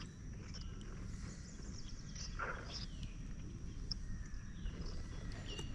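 Faint outdoor background with a low steady rumble and a few soft clicks.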